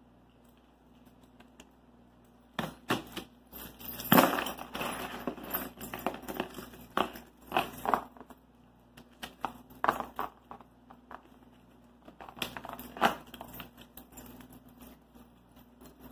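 Hands working at the lid of a large cardboard shipping box, picking at and peeling its packing tape: irregular scrapes, taps and rustles on the cardboard, with a longer rasping stretch about four seconds in.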